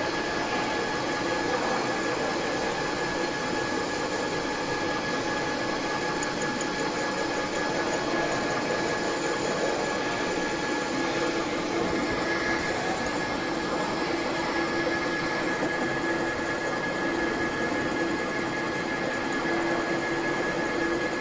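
Metal lathe running steadily, a mechanical hum with several steady whining tones; the lowest tone grows stronger about halfway through.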